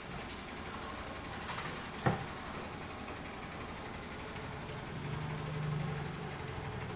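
Water tanker truck's engine idling steadily while a hose runs water into a plastic pot, with a sharp knock about two seconds in. A low hum swells for a second or so near the end.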